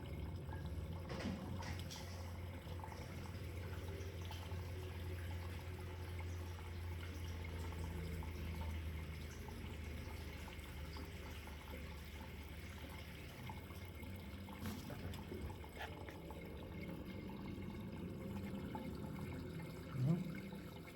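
Water running steadily from a bathroom sink faucet into the drain, refilling the P-trap while the newly cleared drain line is tested for flow.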